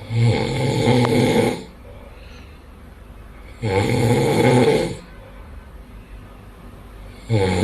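A sleeping man snoring loudly: three long snores about three and a half seconds apart, the last starting near the end.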